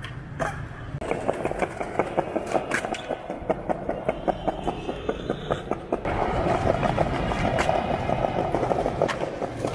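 Skateboard rolling over rough paving: a dense, rapid rattling clatter from the wheels and trucks, with a few sharper clacks of the board.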